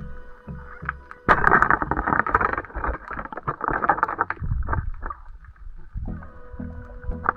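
Underwater, a spear shot strikes the rocky reef bottom with a sudden sharp crack about a second in, followed by about three seconds of loud crackling and scraping as the shaft and the speared fish grind against the rock.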